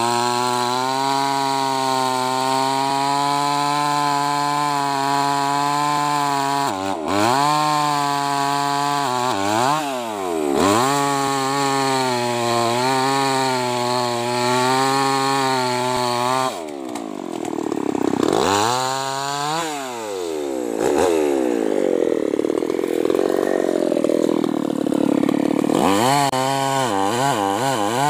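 Tuned-up New West 588 two-stroke chainsaw cutting through a felled hardwood trunk, the engine running steadily under load. From about seven seconds in, its pitch dips and climbs back again several times.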